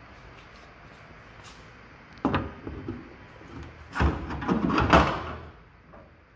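Square aluminium tubing knocking and clattering against its deck mount and the boat's aluminium as it is handled and set in place. There is a single knock about two seconds in, then a longer run of rattling knocks a little before the end, the loudest near its close.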